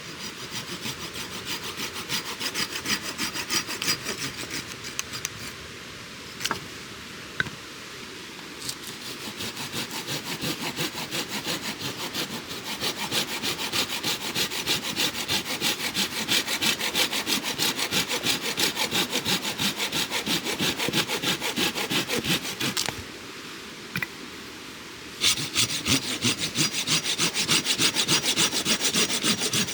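Hand saw cutting through wood in steady back-and-forth strokes, stopping briefly twice before starting again.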